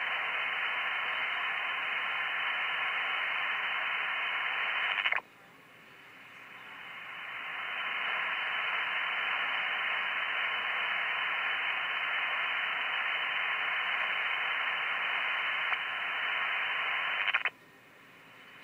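Radio receiver audio: a steady rushing hiss of interference, cut off above about 3 kHz, which the operator takes for RF welding. It cuts out abruptly about five seconds in, swells back over a couple of seconds, and cuts out abruptly again near the end.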